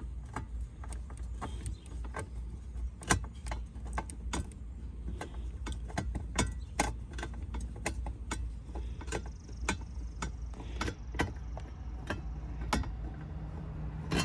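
Irregular small clicks and clinks of screws and plastic car dashboard trim being handled and pulled loose, over a steady low hum.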